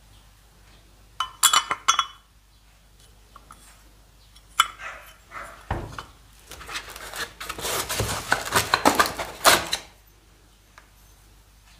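Metal scooter engine parts being handled on a workbench: a quick cluster of clinks about a second in, a few knocks, then a longer stretch of clattering and rustling as parts are moved and a piston is fetched from its box.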